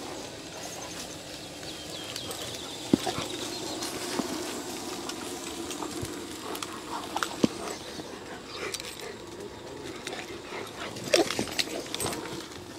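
Two dogs play-fighting, with low, rough growling as they wrestle and mouth at each other, and a few sharp clicks along the way.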